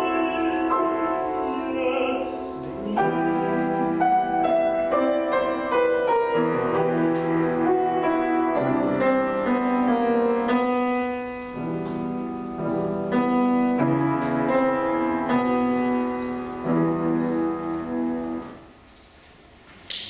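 A male classical singer, a tenor, sings with piano accompaniment. His final phrase ends about eighteen and a half seconds in, the sound dies away, and applause breaks out at the very end.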